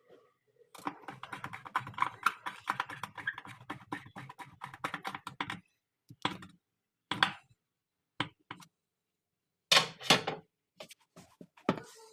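Rapid run of small clicks and knocks for about five seconds, then a handful of separate sharp knocks and clatters: hand-tool and parts handling during work on a washing machine's pulsator.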